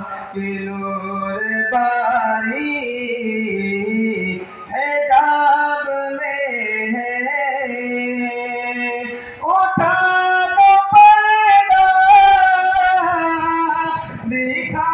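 A man singing a naat, an Urdu devotional poem in praise of the Prophet, solo into a microphone over a PA. He holds long, drawn-out notes with pitch turns, and about ten seconds in, after a brief break, comes back louder and higher.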